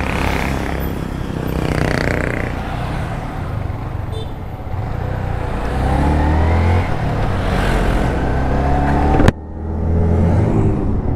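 Motorcycle engine under way, its pitch rising twice as it accelerates, over wind and road noise. The sound cuts off abruptly about nine seconds in and is followed by a lower, steadier engine drone.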